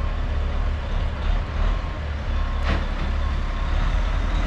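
Diesel engine of a concrete boom pump truck running with a steady low rumble as the truck repositions.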